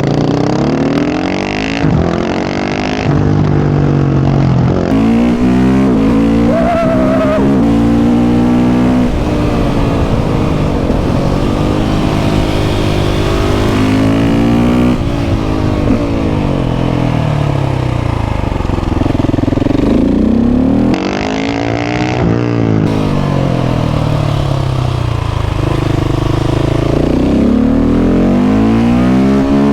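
KTM 690 SMC R's single-cylinder engine through a Leo Vince exhaust, pulling hard through the gears: the pitch climbs and drops repeatedly as it accelerates, shifts and backs off.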